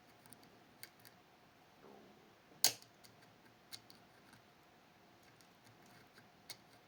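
Small, irregular metallic clicks of a pick working the levers inside a Fichet 484 lever sidebar lock, with one sharper click about two and a half seconds in.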